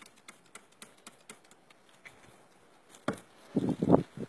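Hands working lumps of animal fat on a marble slab: faint light taps and ticks, about three a second, then a short run of louder muffled sounds about three seconds in.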